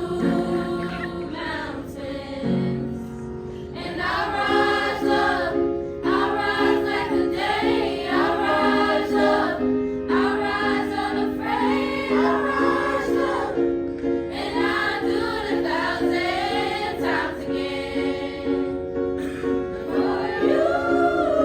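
Music: several voices singing together in a choir style over sustained held accompaniment notes, in phrases of a second or two.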